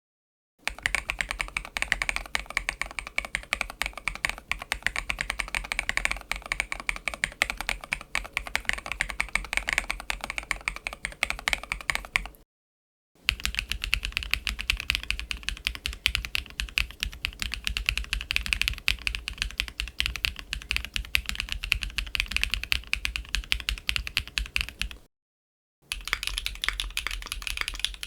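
Fast typing on a mechanical keyboard fitted with Huano Frieren (Elf) linear switches: a dense stream of key clacks. It comes in three passages cut apart by two brief gaps of silence, and the middle passage sounds duller and less full in its mids than the first.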